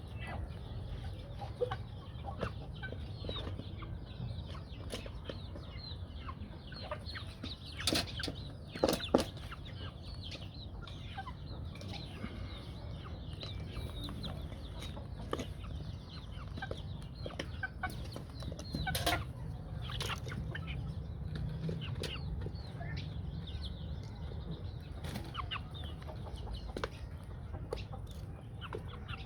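Aseel chickens clucking and calling in many short notes, with a few louder sudden sounds about eight and nine seconds in and again near the middle.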